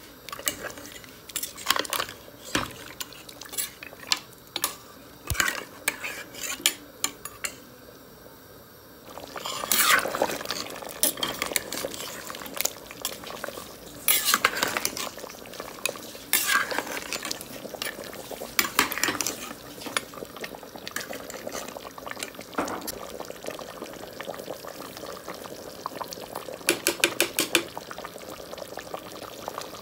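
A metal spoon stirring mutton korma in a metal pot: repeated clinks and scrapes against the pot, getting louder and busier about ten seconds in, with a quick run of clinks near the end.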